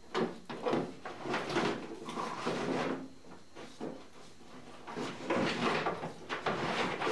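Car wiring loom being pulled by hand through the body panels: wires and their sheathing scraping and rustling against the sheet metal in several uneven pulls, with a quieter stretch about midway.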